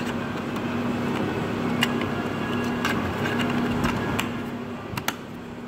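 Steady machine hum with a low drone that comes and goes, and a few sharp clicks, easing off slightly near the end.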